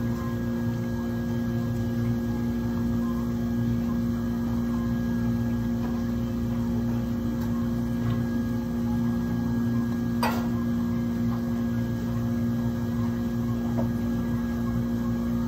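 Lemon-lime soda poured from a plastic bottle over ice into three plastic cups, fizzing, over a steady electrical hum that is the loudest thing throughout. One sharp clink about ten seconds in.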